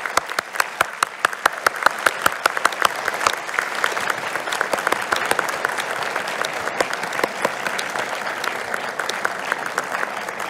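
Large auditorium audience applauding: many people clapping at once, with a few sharp, distinct claps standing out in the first few seconds before the sound fills into a dense, steady wash of applause.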